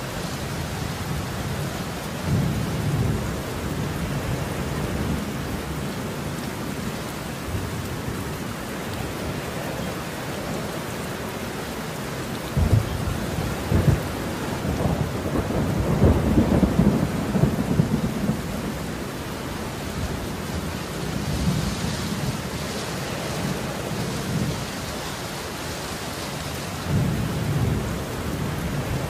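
Steady rain with rolling thunder. Low rumbles come and go, a sharp crack about halfway through leads into the loudest, longest rumble, and a smaller rumble rolls in near the end.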